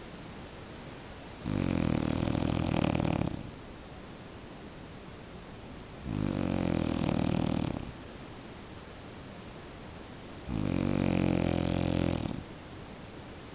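A sleeping man snoring: three long snores of about two seconds each, coming roughly every four and a half seconds.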